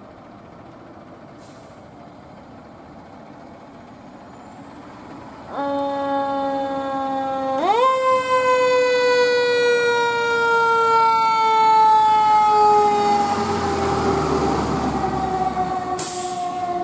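Fire engine siren: a steady horn-like tone starts about five and a half seconds in, then about two seconds later its pitch jumps up and falls slowly in one long wail as the siren winds down. The truck's engine revs as it pulls away under it, and there is a short sharp hiss near the end.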